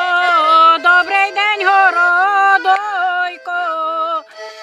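A woman singing a Ukrainian wedding ritual song for the cutting of periwinkle, in long drawn-out phrases with wavering, ornamented held notes, with a short break near the end.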